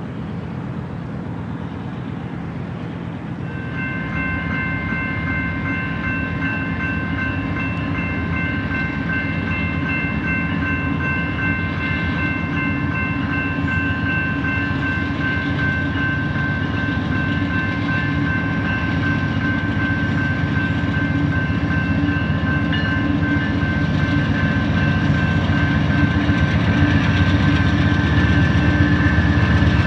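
Approaching freight train: a low diesel-locomotive rumble growing steadily louder, with several steady high tones held from about four seconds in.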